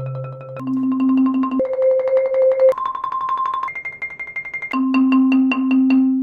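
Marimba played with Marimba One Wave Wrap yarn mallets: sustained notes and chords are rolled with fast, even strokes, moving to a new pitch about once a second.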